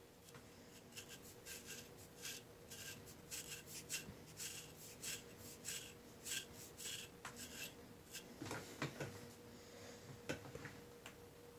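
An LT Wright Kamrat knife scraping psoriasis scales off the skin of a shin in quick, dry, rasping strokes, about three a second. The scraping stops after about seven seconds, and a few soft knocks and handling sounds follow.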